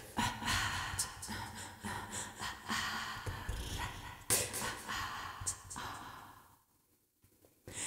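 Quiet breaths and soft mouth noises close to a singer's microphone, with a few faint clicks, in a pause between stretches of a cappella singing. About six and a half seconds in, the sound cuts off suddenly into a second of silence.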